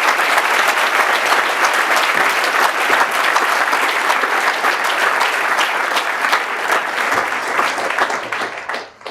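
Audience applauding at the end of a talk, steady clapping that fades out near the end.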